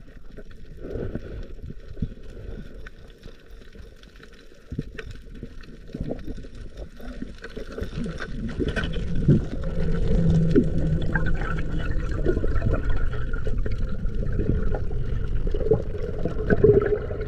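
Water gurgling and sloshing close to the microphone, getting louder about eight seconds in.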